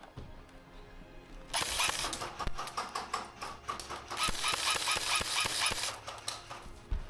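Airsoft electric gun firing on full auto in two long bursts, a rapid even rattle. The first starts about a second and a half in; after a short lull the second runs to about six seconds.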